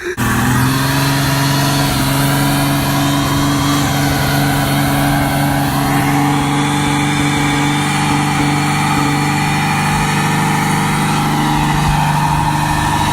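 Old 4.0-litre engine held at high, steady revs, a constant loud drone that barely changes pitch, as the vehicle is run flat out for a burnout.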